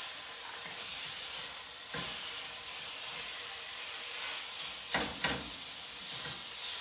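Ground lamb sizzling steadily in a stainless steel frying pan as a wooden spoon stirs and breaks up the still partly frozen meat. A few sharper scrapes of the spoon against the pan come about two seconds in and twice near five seconds.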